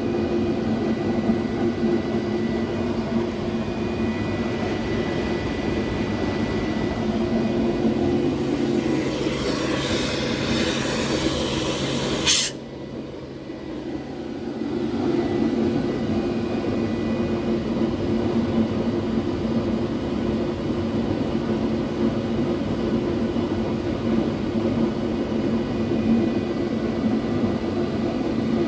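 Atlas Copco GX4 rotary screw air compressor running with a steady hum. About eight seconds in, a hiss of air rises and ends in a sharp burst a few seconds later. The running sound then drops for a few seconds and builds back up.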